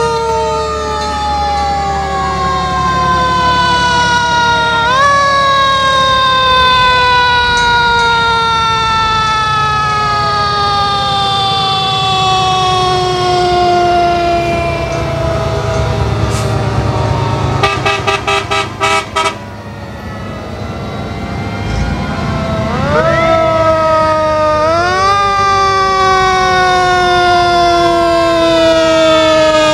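Several fire-truck sirens wind up and then coast slowly down in pitch, overlapping at different pitches, over a low rumble of truck engines. About two-thirds of the way through comes a quick run of about six short, sharp blasts, and then the sirens wind up again.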